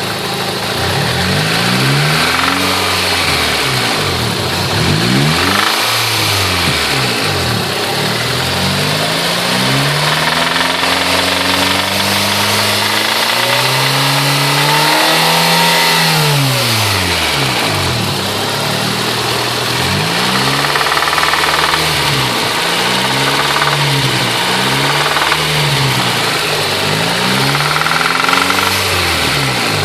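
Honda B16A 1.6-litre DOHC inline-four engine being revved up and down over and over, each rev rising and falling within a second or two. It is making a noise that the owner suspects is a spun bearing.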